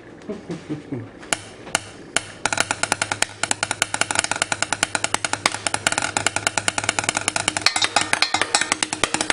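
Chopsticks drumming on kitchen pots, pans and utensils: a few single taps, then from about two and a half seconds in a fast, continuous run of strikes.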